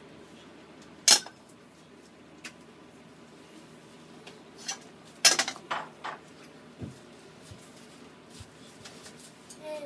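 Metal frying pan knocking against the gas stove's cast grates as it is set down and shifted: one sharp clank about a second in, then a quick cluster of clanks around the middle, with a few lighter knocks.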